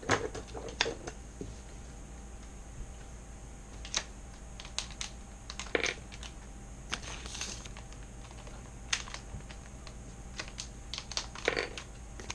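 Anti-static plastic bags crinkling and rustling in the hands as small circuit boards are unwrapped, heard as irregular sharp clicks and short crackles.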